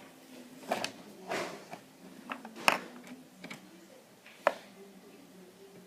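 Faint handling noise: a few light, irregular clicks and knocks spaced roughly a second apart, with a quiet background hum.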